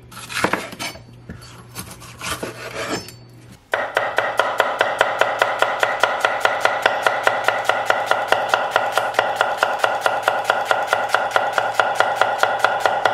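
Kitchen utensil clatter and scraping, at first irregular. From about four seconds in it becomes a steady, fast rhythmic scraping and clinking, about five strokes a second.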